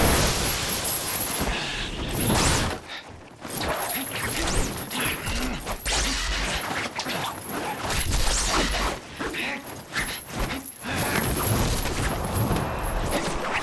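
Film fight sound effects: a dense run of quick swishes, hits and clatter as fighters clash hand to hand, with short lulls about three seconds in and near ten seconds.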